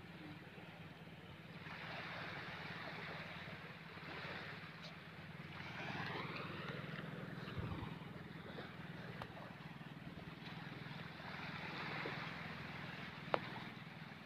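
A steady low drone, like a distant motor, under an even hiss of wind noise that swells and fades, with one sharp tap near the end.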